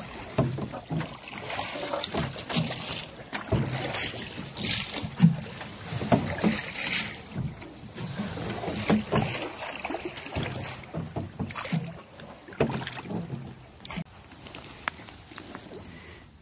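Irregular knocks, thumps and rubbing from handling gear and a duck in an aluminum rowboat, close to the microphone.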